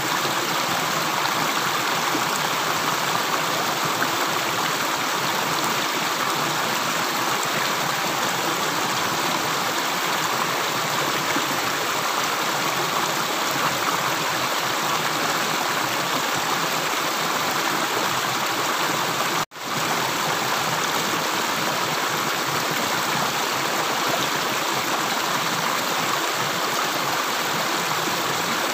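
Steady rush of running water, like a stream, even and unbroken except for a momentary cut-out about two-thirds of the way through.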